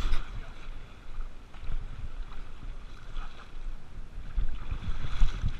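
Small waves washing and splashing over rocks and sand in the shallows, with wind rumbling unevenly on the microphone and growing stronger near the end.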